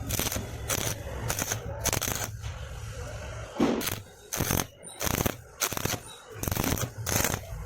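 Stick (arc) welding arc crackling and sizzling on steel square tube. It runs almost steadily at first, then from about halfway breaks off and restarts roughly every two-thirds of a second.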